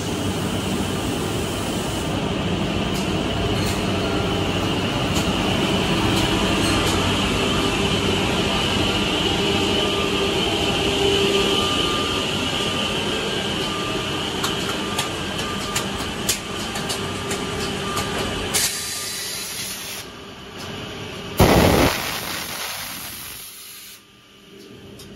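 HK968 automatic edge banding machine running: a steady mechanical rumble and hiss from its motors and feed conveyor, with scattered sharp clicks. The noise drops about two-thirds of the way through, there is a brief loud burst of noise a little later, and it is quieter near the end.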